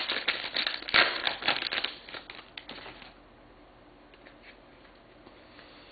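Plastic-foil wrapper of a trading card pack being torn open and crinkled, a dense crackling rustle that stops about three seconds in.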